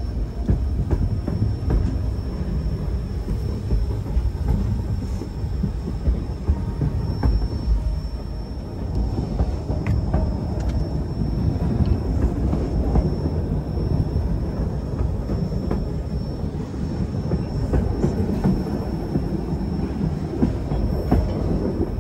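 Narrow-gauge White Pass & Yukon Route passenger train rolling along the track: a steady low rumble of wheels on rail with scattered faint clicks and a faint high steady whine above it.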